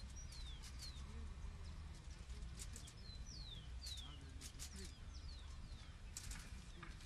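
Faint outdoor ambience of small birds chirping: short, falling whistled notes and quick clusters of high chips, over a steady low rumble.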